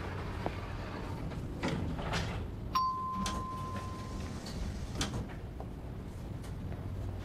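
Elevator arrival chime: a single bell-like ding rings out about three seconds in and fades over a second and a half. Soft knocks and the slide of elevator doors opening sit around it, over a low room hum.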